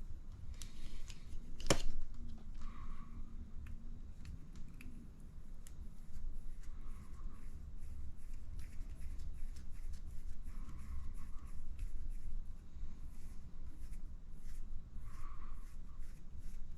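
Small clicks and scrapes of plastic RC buggy shock parts being handled and fitted by hand, with one sharp click about two seconds in.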